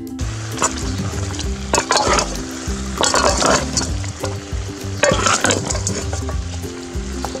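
Metal spatula stirring and scraping chicken pieces in a steel pot while they sizzle, with heavier scraping strokes about two, three and five seconds in.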